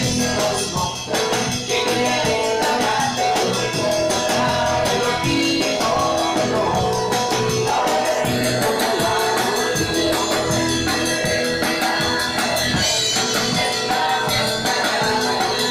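A live rock and roll band playing, with drum kit and guitar keeping a steady, driving beat.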